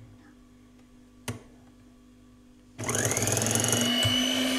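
Electric hand mixer switched on about three seconds in. Its motor winds up in pitch, then runs steadily as the beaters whip cream cheese filling. A short click about a second in.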